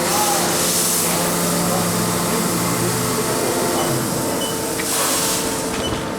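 Milling machine running a high-feed milling cut: a steady mechanical hum with low tones that stop about halfway, and two bursts of hiss, one near the start and one about five seconds in.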